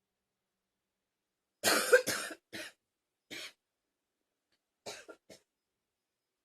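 A person coughing: two hard coughs in quick succession about a second and a half in, then several weaker, shorter coughs trailing off over the next few seconds.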